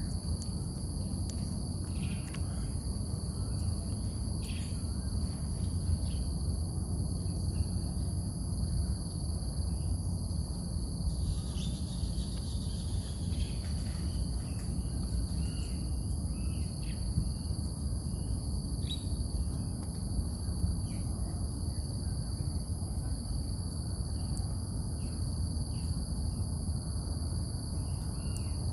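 Steady high-pitched drone of crickets or cicadas over a low rumble, with short bird chirps scattered throughout.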